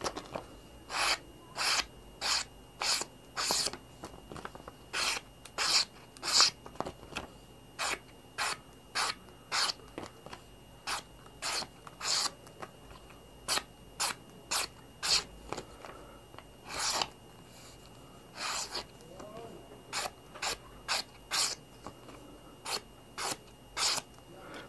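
A freshly resharpened convex-ground Nessmuk Nordhunter knife in CPR steel slicing thin strips from thick glossy paper. Each cut gives a short hissing swish, one or two a second, with a brief pause a little past the middle. This is a sharpness test of the new edge.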